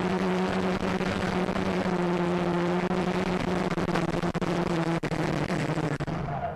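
Walkera X350 Pro quadcopter's brushless motors and propellers whirring, a steady hum over rushing air, picked up by the camera on the quad. Near the end the pitch sags and the sound drops off sharply as the quad comes down in the grass.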